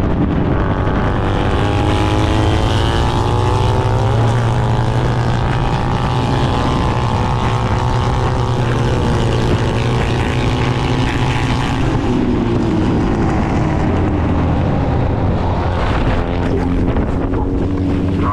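Triumph racing motorcycle's engine running hard at track speed, with wind rushing over the onboard microphone; the engine note rises and falls several times through gear changes. Near the end the bike crashes into the grass, with a few sharp knocks.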